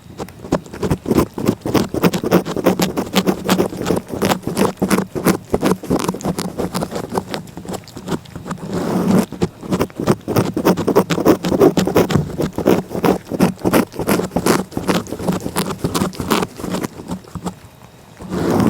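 A cat licking close to the microphone: rapid, irregular licking strokes, several a second, with a short pause near the end.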